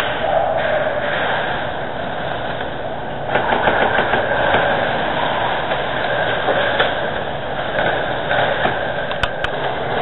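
Airsoft guns firing in rapid bursts of fast clicks over a steady rushing noise, with the densest burst from about three to four and a half seconds in. Two sharp clicks come near the end.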